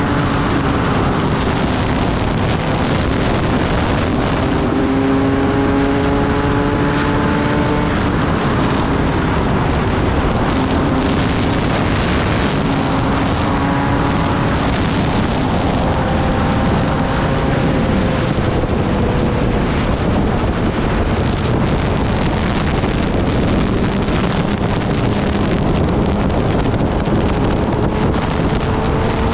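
Kawasaki Ninja ZX-10R's inline-four engine running at road speed, its pitch climbing slowly and dropping back several times, under steady wind rush over the microphone.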